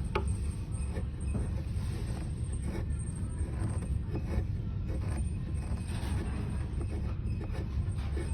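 Steady low hum with faint, irregular scrapes and small clicks from hand work on a cello's nut.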